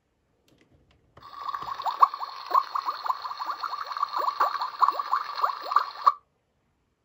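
A toy kitchen's built-in electronic sound effect playing through its small speaker: a bubbling, water-like loop of quick falling chirps over a steady tone. It switches on about a second in and cuts off abruptly about five seconds later.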